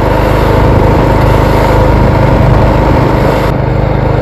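Snowblower engine running steadily.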